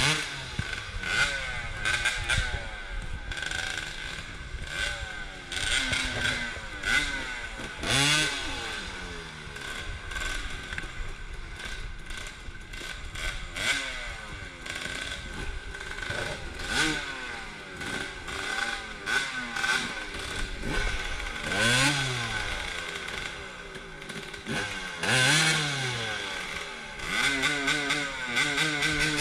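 Dirt bike engine revving hard in repeated bursts, its pitch climbing and falling again and again, as the bike struggles stuck in deep mud.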